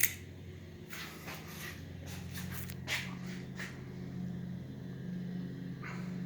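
Mid-1990s Hunter ceiling fan motor humming steadily after being switched to medium speed, getting a little louder as it spins up, with a few faint clicks.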